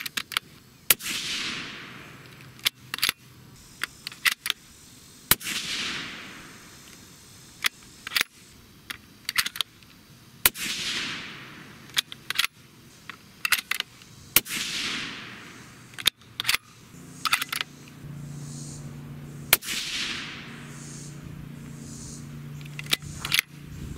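Five suppressed shots from a Sig Cross bolt-action rifle in 6.5 Creedmoor, spaced about four to five seconds apart, each trailing off in an echo. Sharper, smaller clicks fall between the shots as the bolt is worked. A steady low hum comes in near the end.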